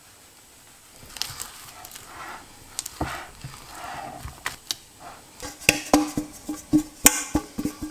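A spatula folding thick cake batter in a glass bowl, making soft wet stirring sounds. About five and a half seconds in, a metal cake tin dusted with flour is knocked and tapped against a counter in a rapid series of sharp knocks, each ringing briefly.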